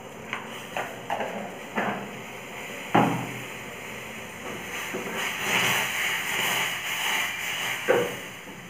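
Metal utensils knock and clink against a steel saucepan on a gas stove several times; the loudest knock comes about three seconds in. Underneath is a steady hiss of the gas flame and of water coming to the boil, which swells into a louder bubbling rush in the second half.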